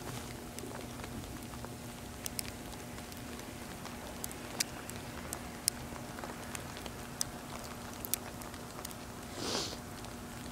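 Scattered sharp ticks, as of sleet striking close to the microphone, over a steady low hum, with a brief rush of hiss about nine and a half seconds in.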